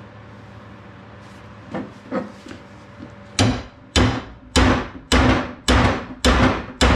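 Hammer blows on a rust-seized arbor press, trying to drive the stuck part free. Two light taps come first, then a little over three seconds in a steady run of about seven heavy blows, roughly two a second, each with a short ring.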